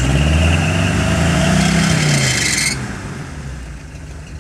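Off-road 4x4's engine revving up and settling back, under a loud rushing noise that cuts off a little past halfway, after which the engine runs more quietly.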